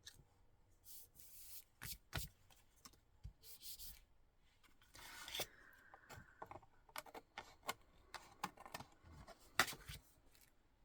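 Paper and card being handled: brief rubbing and rustling with irregular light taps and clicks, the sharpest tap near the end.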